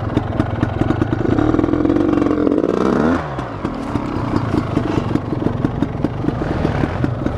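KTM Freeride dirt bike engine running at low speed off-road, revving up briefly about two seconds in and dropping back.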